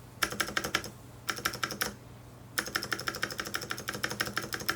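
Mechanical keyboard with clicky Cherry MX Blue switches, a Varmilo Pro Panda, typed on in two short bursts and then steadily from about two and a half seconds in. The switches are freshly lubed with Krytox 205g0, giving significantly less rattle and less of the high-pitched plastic-on-plastic noise.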